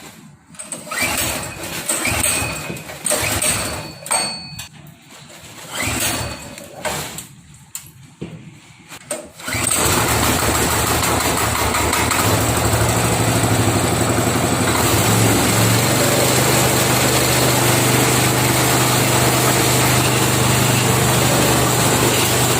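Small 7.5 HP MGX-210 engine on a KD-580S rice mill being started: several short bursts of cranking that fail to catch, then about nine and a half seconds in it starts and runs steadily, driving the mill.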